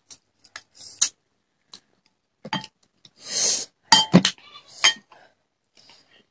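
Serving spoon clinking against a glass bowl: a few separate sharp clinks spread out, the loudest pair about four seconds in with a short ring. Just before that there is a brief breathy hiss.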